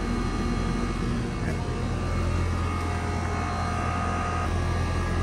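Rheem 5-ton R454B split-system condensing unit running steadily: a low hum from the compressor under the steady rushing of the condenser fan.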